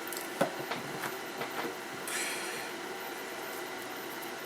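Light clicks and taps of small tools and parts being handled on a workbench, with a short hiss about two seconds in, over a steady low hum.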